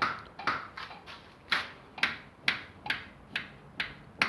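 Chevrolet Niva's power steering knocking as the wheel is turned, a sharp knock about twice a second. The cause is a cracked chassis side member where the power steering box mounts, not a failed power steering unit.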